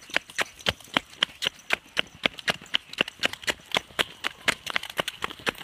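Running footsteps on a paved path: a quick, even patter of sharp steps, about five or six a second.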